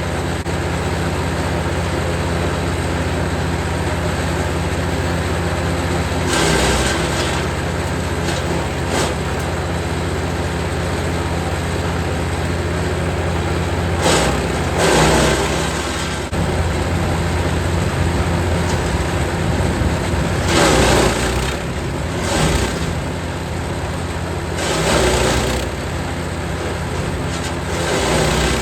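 Jansen 1500e GTS wood chipper's engine running steadily under load, with about six louder crackling bursts as branches are fed in and chipped.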